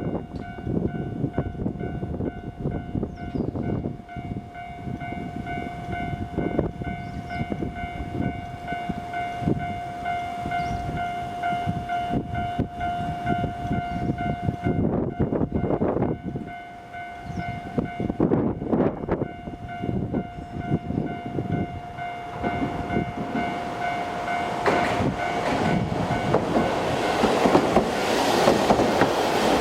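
Japanese railroad crossing alarm ringing its steady electronic kan-kan bell over low road rumble. Near the end a Hankai tram's running noise swells and grows louder as it reaches the crossing.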